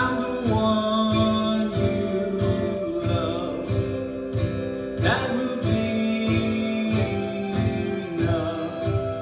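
A man singing a slow worship song to his own strummed acoustic guitar, the strumming keeping an even pulse while sung phrases come and go.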